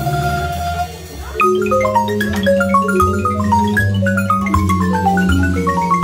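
Guatemalan marimba ensemble playing, mallets on wooden keys: held rolled notes over a bass line, then after a brief lull, quick descending runs of notes over the steady bass.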